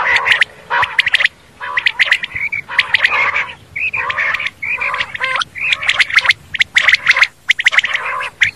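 Common quail calling: a dense run of short calls, several a second and overlapping one another, broken by a few brief pauses.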